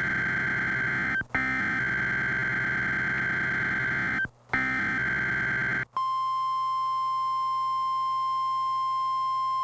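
Emergency Alert System test tones from a TV broadcast: harsh, buzzing data-signal bursts broken by brief gaps about one second and four seconds in. From about six seconds in, a steady single-pitch tone takes over.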